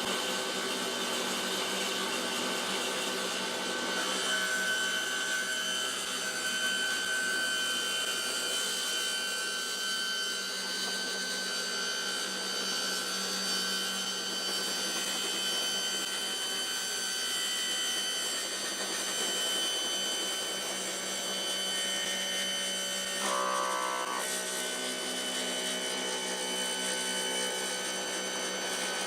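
1954 Rockwell/Beaver 8-inch table saw running steadily while its blade is slowly raised up through a half-inch MDF zero-clearance insert to cut the blade slot.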